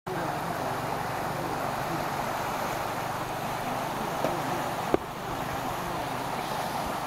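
Steady rushing background noise, with a sharp click about five seconds in.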